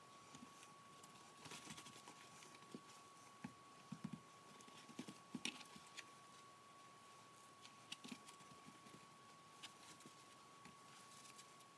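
Faint, scattered soft taps and paper rustles as raw chicken breasts are patted dry with paper towels and shifted on a plastic cutting board, with a faint steady tone underneath.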